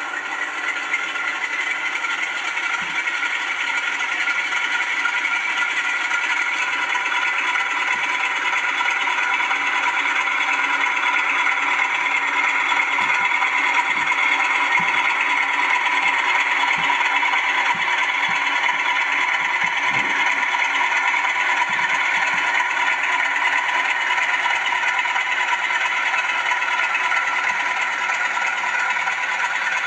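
Zimo ZS47A sound decoder in a model Class 47 diesel, playing the locomotive's Sulzer engine sound through small bass-reflex speakers: a steady engine drone with a high, whistling turbocharger tone, growing a little louder over the first several seconds. A few faint clicks come through in the middle.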